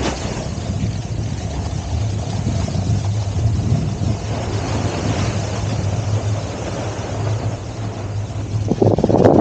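Wind buffeting the microphone of a camera carried down a ski run, over the steady hiss of skis sliding through wet, slushy spring snow. A louder burst comes in near the end.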